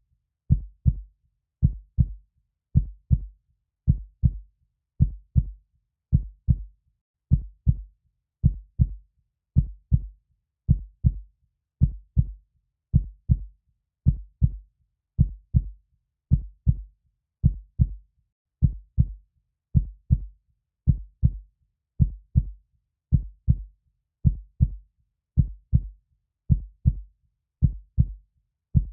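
Slow, steady heartbeat: a deep lub-dub double thump repeating evenly about once a second, the first beat of each pair louder than the second.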